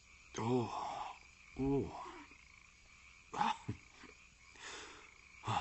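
A man's short grunting sounds, about four of them a second or two apart, each rising and then falling in pitch.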